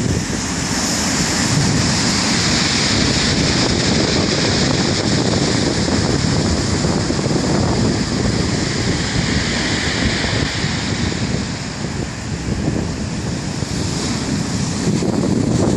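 Sea waves washing on the shore in a continuous hiss, with wind rumbling on the microphone.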